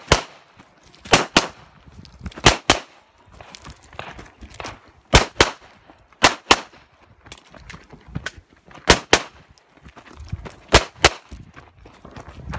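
Pistol fired in quick pairs of shots (double taps), about six pairs a second or two apart, as the shooter engages target after target.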